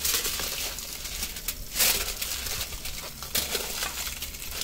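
Aluminium foil crinkling and rustling in short bursts as it is folded and pressed around a grilled beef roast, over a steady sizzle from the grill.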